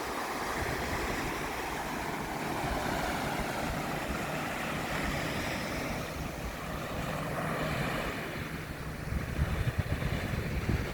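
Ocean surf washing on the beach, with wind buffeting the microphone in low rumbling gusts that get stronger near the end.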